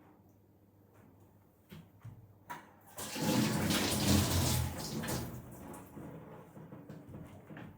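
Water running hard, as from a tap into a sink, starting about three seconds in after a few light clicks, loudest for about two seconds, then easing off.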